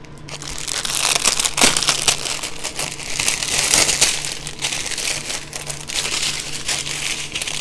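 Clear plastic packaging crinkling as it is handled: a dense run of small crackles that builds about half a second in and keeps going.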